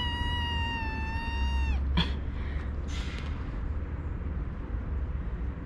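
A kitten giving one long, drawn-out meow that sinks slowly in pitch and breaks off about two seconds in, followed by a short click and a few faint, brief sounds.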